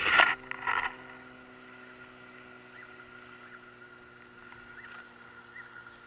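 Handling noise on a handheld camera's microphone: a few loud rubs and knocks in about the first second. After that comes a faint steady hum with a few short, faint high chirps.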